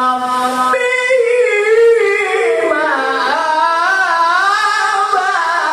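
Melodic Quran recitation by a qari: one voice holds a long note, then winds through ornamented, melismatic turns of pitch.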